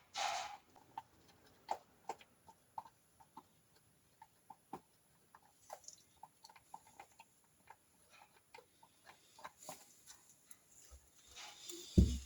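Faint, scattered light clicks and taps of the Triumph Trident T160's small metal oil pump parts being handled and fitted back together after oiling. A brief rustle at the start and a single louder knock near the end.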